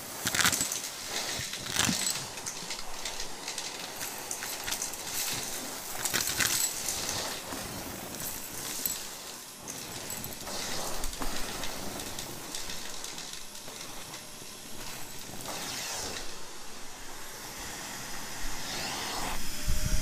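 Shark Navigator vacuum sucking air through its crevice tool and wand: a steady airy hiss with scattered short clicks and rattles as bits are pulled up the hose.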